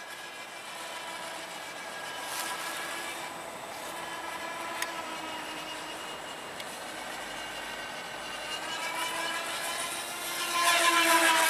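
Motor of a semi-scale RC Avro Vulcan model aircraft whining in flight, its pitch wavering. It grows loudest near the end, the pitch sliding down as the model passes close.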